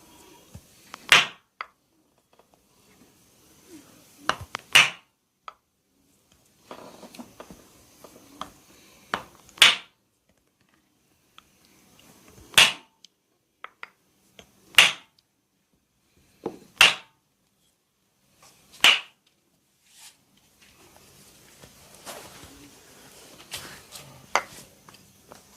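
Hands striking the body during a barber's massage in seven loud, sharp slaps a few seconds apart, then a low rustle of rubbing with a few softer taps near the end.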